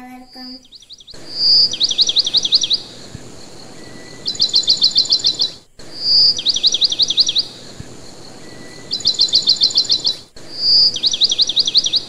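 Bird song: a clear whistled note, then a fast trill of about a dozen quick falling chirps. The phrase comes five times over a steady background hiss, which cuts out abruptly twice.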